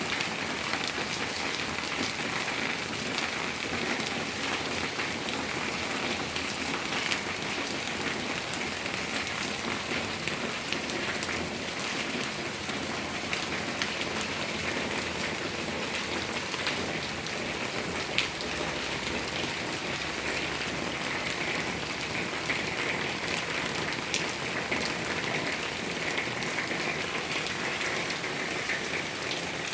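Steady rain falling, a constant hiss of rain on surfaces with many separate drops ticking through it.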